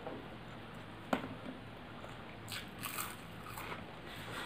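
Close-up eating sounds of rice and curry eaten by hand: chewing and wet mouth noises, with one sharp click about a second in and a run of crackly clicks in the second half.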